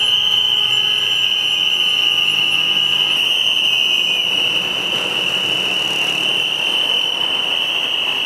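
A loud, steady high-pitched tone over a noisy background hiss.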